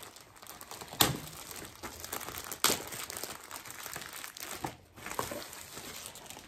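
Clear plastic shrink-wrap crinkling as it is picked open and peeled off a trading-card mega pack, with two sharp cracks of the plastic, one about a second in and another near the three-second mark.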